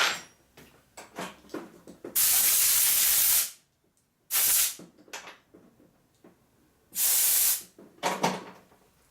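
Three hissing blasts of pressurised spray from a nozzle: the first about a second long, a short one near the middle and another about two-thirds through. Light metallic clicks and taps of small parts come between them.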